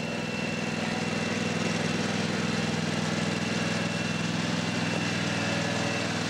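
John Deere garden tractor's engine running steadily while towing a loaded water-tank cart across ice: an even hum with a faint high whine over it.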